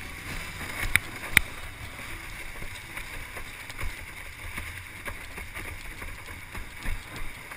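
Water rushing and slapping along the hull of a formula windsurf board sailing through light chop, with wind buffeting the board-mounted camera's microphone. Two sharp knocks come about a second in and a few more near the end as the board hits the chop.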